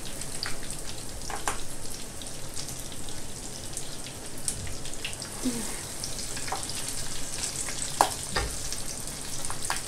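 Hot fat sizzling in a frying pan, with scattered small pops and spits and one sharper click about eight seconds in.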